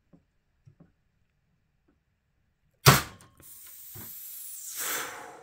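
A small screwdriver slips off a CPU heatsink's spring clip with a sudden loud snap about three seconds in, striking the motherboard near the memory slot, followed by about two seconds of hissing noise.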